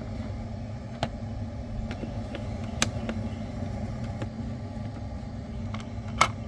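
Three sharp clicks of plastic parts being handled as a small top cover plate is taken off a robot lawn mower to fit its 3D vision guide, over a steady low rumble. The last click, near the end, is the loudest.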